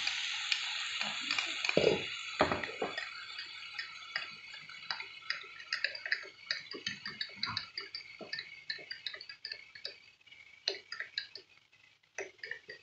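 A metal spoon stirring cornflour into a glass of milk, ticking and clinking quickly and irregularly against the glass. A pan's sizzle underneath fades away in the first few seconds.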